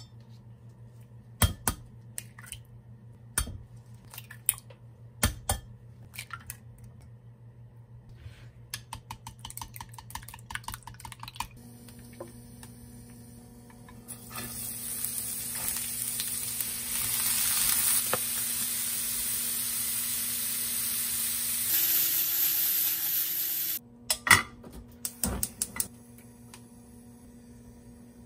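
Eggs knocked and cracked on a glass measuring cup with a few sharp taps, then beaten with chopsticks in a quick run of clinks against the glass. About halfway through comes a loud steady hiss and sizzle of oil heating in a pan on a gas stove, which stops abruptly and is followed by a few clanks of a pan.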